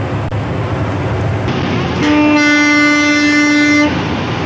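A vehicle horn sounds once, a steady pitched blare lasting nearly two seconds, starting about two seconds in. It sits over the steady hum of the bus's engine and road noise.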